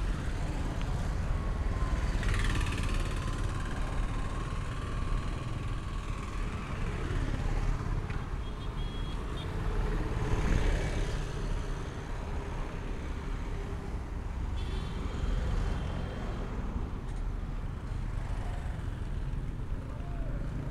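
Street traffic: a steady rumble of vehicle engines and road noise. Vehicles pass closer about two seconds in and again about ten seconds in.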